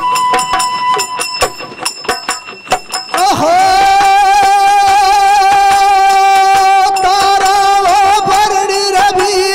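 Chang frame drums beating with a bansuri flute's thin steady tone, then about three seconds in a singer's voice enters on one long held note with vibrato over the drums.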